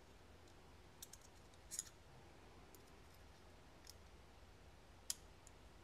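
Near silence broken by a few small metallic clicks and ticks from the parts of a Divo Mash 2.5 folding knife being handled and fitted together during reassembly. The sharpest click comes about five seconds in.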